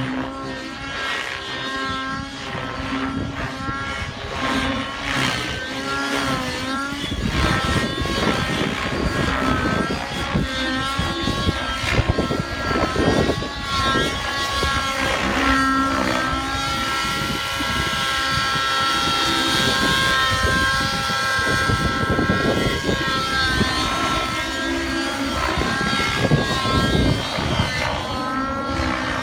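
Synergy N7 nitro radio-controlled helicopter flying overhead: the whine of its engine and rotors keeps rising and falling in pitch with the manoeuvres, then holds steady for several seconds in the middle. Gusts of wind rumble on the microphone now and then.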